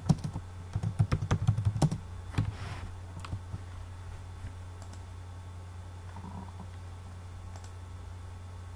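Typing on a computer keyboard: quick keystrokes for about two seconds, then a few scattered clicks, over a steady low hum.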